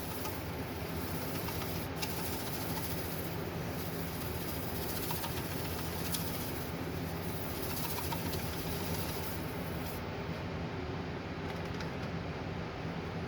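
A steady motor hum under a constant hiss, with a couple of faint clicks.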